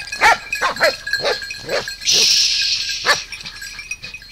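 Hunting dogs barking in a quick excited series while baying a wild boar, then one more bark after a pause. About two seconds in there is a short harsh hiss-like noise.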